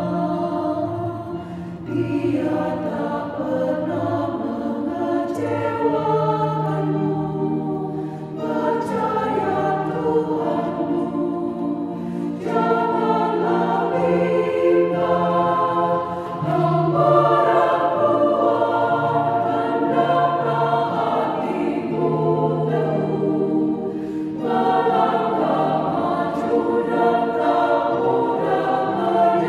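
Women's choir singing a hymn in Indonesian, in sustained phrases a few seconds long with short breaks between them.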